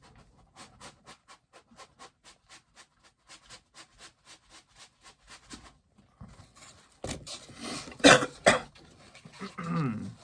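Rhythmic panting, about four breaths a second, typical of a dog in the room. It is followed, about seven seconds in, by loud rustling and scraping as a bobblehead's packaging is pulled out of its box.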